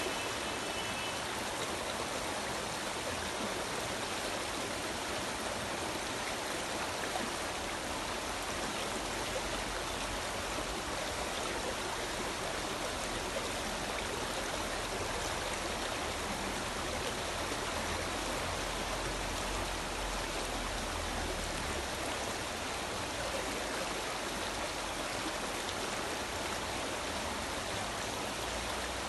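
Stream flowing: a steady, even wash of running water that does not change.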